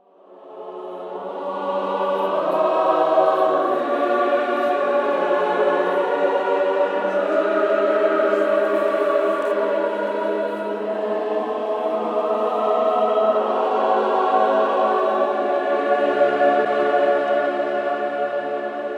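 A choir singing sustained, slowly moving chords, fading in over the first couple of seconds.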